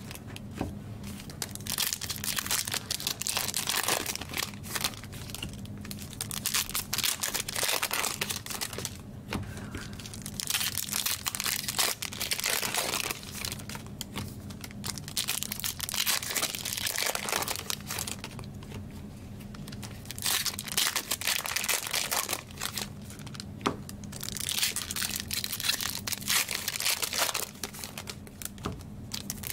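Plastic trading-card packaging crinkling and tearing in irregular bursts, with a few short pauses, as card packs and wrappers are handled and opened.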